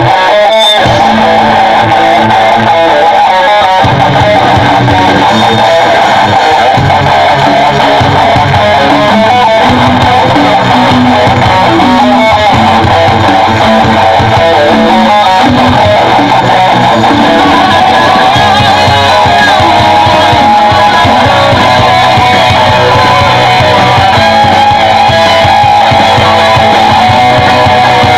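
A rock band playing live, with electric guitars strumming over a bass guitar. The music is loud and steady throughout.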